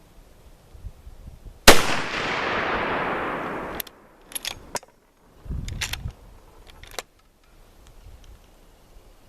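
A single shot from a Mossberg Patriot bolt-action rifle in .350 Legend, a sharp crack with a long echo fading over about two seconds. After it comes a series of metallic clicks and a low clack as the bolt is cycled.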